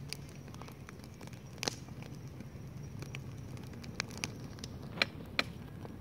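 Campfire of burning firewood crackling, with irregular sharp pops; a loud one about a second and a half in and two loud ones close together near the end.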